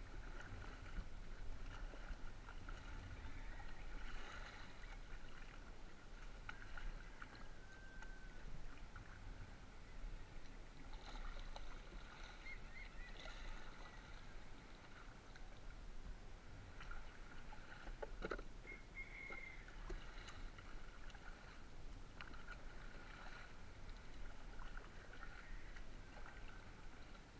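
Water sloshing and dripping around a small wooden-paddled outrigger canoe as it is paddled, with water lapping at the hull. A single sharp knock about eighteen seconds in.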